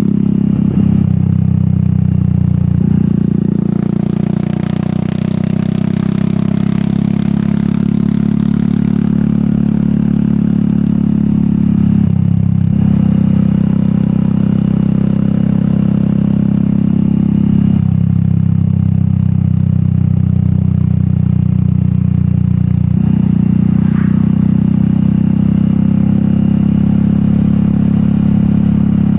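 Royal Enfield Meteor 350's single-cylinder engine running through an aftermarket sport exhaust while riding, its note stepping up and down in pitch several times as the engine speed changes.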